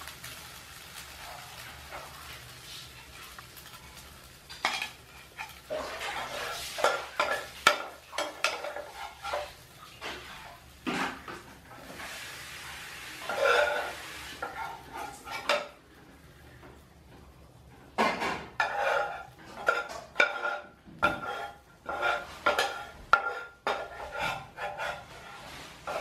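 A metal utensil scrapes and clinks against a frying pan and plate as fried noodles and sausage pieces are lifted out and served, in irregular clattering bursts with a lull of a couple of seconds after the middle. A faint sizzle from the pan sits under it, clearest in the first few seconds.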